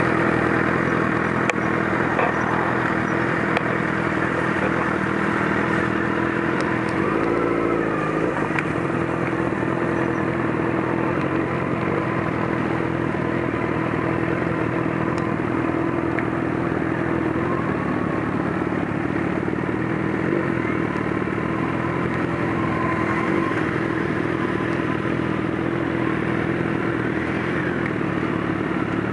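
Motorcycle engines running steadily as a group of motorcycles rides together, heard from among the moving bikes, with a brief change in engine note about a quarter of the way in.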